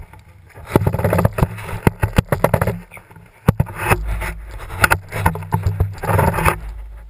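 Handling noise from a handheld action camera: clothing rubbing and scraping against the microphone, with irregular knocks and clicks as it is swung about. The noise comes in two long dense stretches, about a second in and again around four to six seconds.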